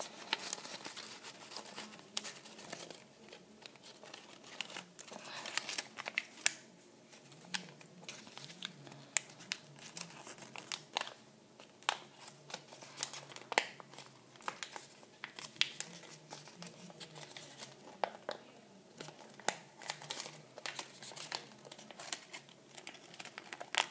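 Sheets of patterned design paper crinkling and crackling as hands fold and press them, working a sunk fold into an origami basket's base; irregular sharp crackles come every second or so.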